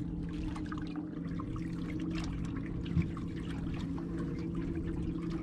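Water trickling and splashing around a small fishing boat over a steady low hum, with a single knock about three seconds in.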